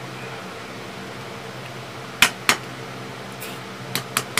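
Sharp clicks and taps of eating at a glass-topped table, with a boiled balut egg being handled and peeled: two loud taps about two seconds in, then three quicker ones near the end, over a steady low hum.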